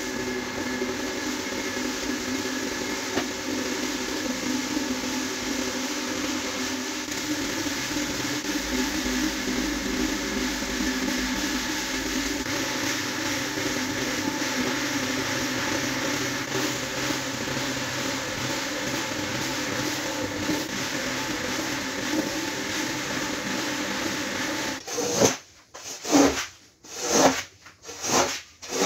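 Single-disc rotary floor scrubber running steadily: its motor hums and its spinning brush scrubs a soaked rug. Near the end the machine stops, and a long-handled brush scrubs the wet, soapy rug in about five swishing strokes, a little under a second apart.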